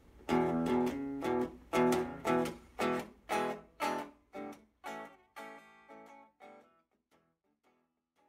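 Oil-can guitar plugged into a small amplifier, strummed in chords about two strokes a second; the strokes grow quieter over the last few seconds and die out near the end.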